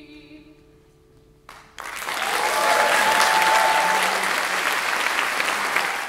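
The last held chord of a choir with band fades away. About a second and a half in, an audience starts applauding and keeps it up.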